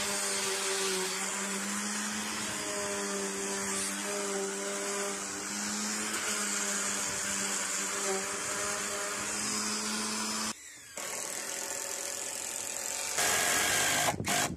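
Corded electric sander running steadily while sanding pencil marks and rough edges off a pine beam; it stops about ten seconds in. Near the end, a louder cordless drill driver runs, driving a screw into the timber.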